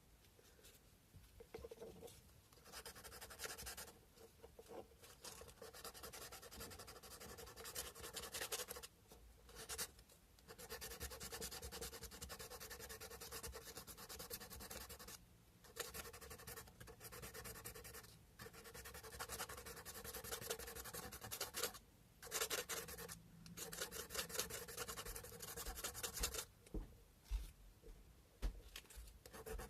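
Sandpaper rubbed back and forth by hand over a carved cow-bone fish hook: runs of quick, fine scratching strokes, broken by short pauses several times.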